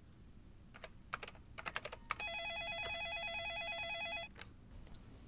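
Desk telephone ringing once with an electronic warbling trill for about two seconds, preceded by a few clicks of computer keyboard typing. A single click follows near the end.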